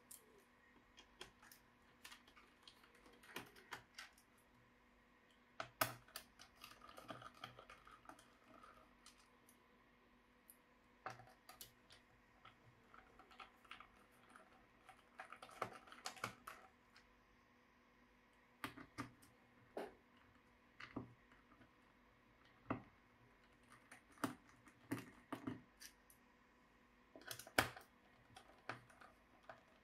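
Scattered light clicks and taps, with a few brief scrapes, of an MSI Titan 18 HX laptop being handled and taken apart, with sharper clicks about six seconds in and near the end.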